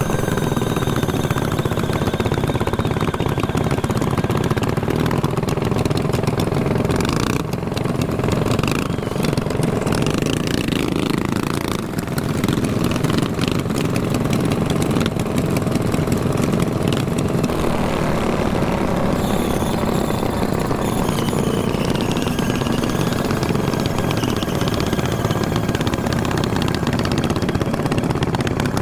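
Small mini bike engines running steadily while riding, their note shifting now and then.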